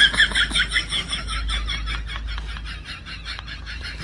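A rapid, even series of short high chirping calls, about six a second, fading gradually.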